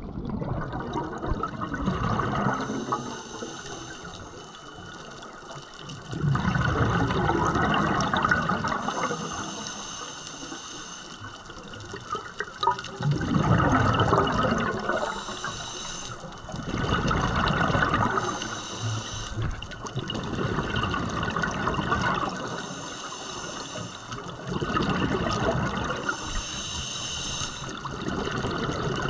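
Scuba diver breathing underwater through a regulator: a hissing inhale followed by a rushing burst of exhaled bubbles, repeating about every five seconds.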